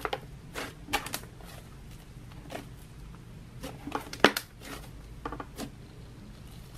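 White fluffy butter slime squeezed and kneaded in the hands, giving irregular crackling pops, the loudest about four seconds in. A steady fan hum runs underneath.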